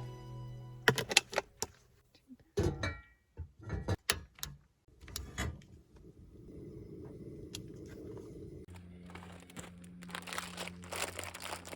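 Clinks and clatter of camp cooking gear being handled, a scattered run of sharp knocks in the first half, followed by a faint steady low hum.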